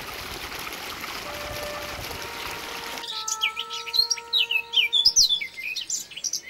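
Water of a small stream running over stones, then from about three seconds in a songbird singing a rapid string of quick chirps and warbles, louder than the water had been.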